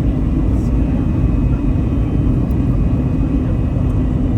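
Steady cabin noise of a passenger airliner heard from inside: a constant low rumble of engines and airflow with a faint steady whine above it.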